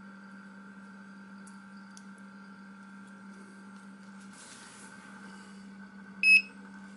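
Single short beep from a hobby LiPo battery charger as a button on its front panel is pressed, near the end. Before it comes a brief rustle, over a faint steady hum.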